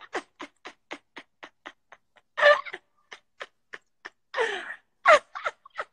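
Steady ticking, about four ticks a second, under three loud, drawn-out yells from a voice whose pitch swoops: one about two and a half seconds in, and two close together in the last second and a half.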